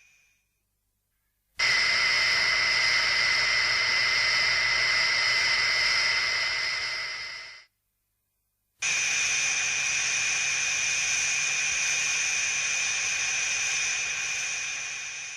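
Showa-era Mothra film sound effect: two separate steady hissing blasts, each with a high whistle-like tone running through it, the first lasting about six seconds and the second about seven, each fading out, with a short silence between.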